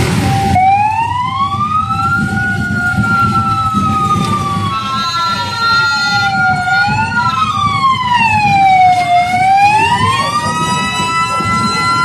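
Isuzu Elf fire truck's siren wailing. It slowly rises and falls in pitch, several seconds per sweep, over a steadier second tone and a low rumble.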